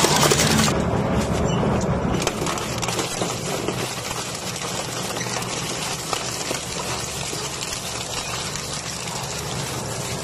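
Twin-shaft shredder running, its hooked cutter discs grinding scrap metal and wire in a continuous crunching, rattling noise. It is louder for the first couple of seconds, then settles to a steadier grind.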